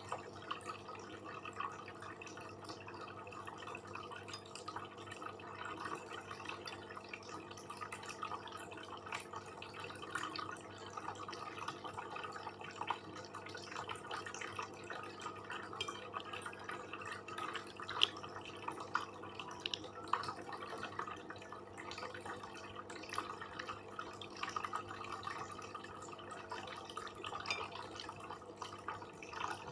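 Close-miked eating sounds: chewing and small wet mouth clicks and smacks, irregular and continual, over a steady low hum.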